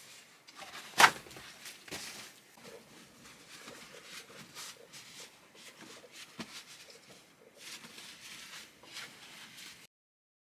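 Paper towel torn off a roll with one sharp rip about a second in, then crinkling and rustling of the paper as hands are rubbed dry in it, stopping abruptly near the end.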